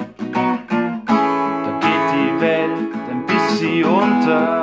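Acoustic guitar strummed in a blues song, with a man's voice singing over it from about three seconds in.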